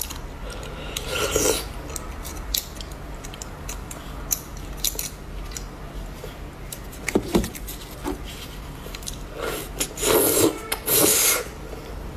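A small metal fork scraping and clicking against the inside of roasted beef marrow bones. There are louder rasping strokes about a second in and again near the end.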